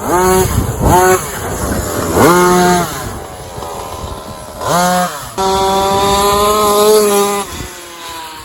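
Rovan XLT gas RC truck's two-stroke engine revving: several short throttle blips that rise in pitch in the first half, then a held run at steady pitch for about two seconds near the end.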